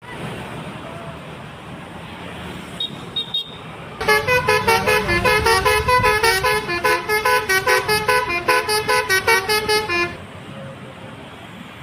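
Bus telolet horn, a Basuri multi-tone air horn, playing a quick tune of short honking notes that jump up and down in pitch for about six seconds, starting about four seconds in. A low bus engine rumble runs under it, with a few brief high beeps just before the tune.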